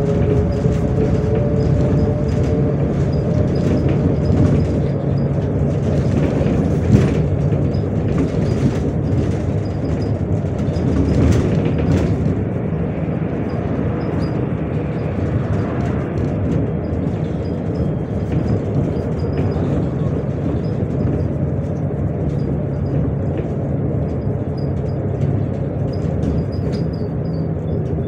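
Inside a MAZ 105 articulated city bus under way: a steady engine drone and road noise, with scattered clicks and rattles from the body and one sharper knock about seven seconds in.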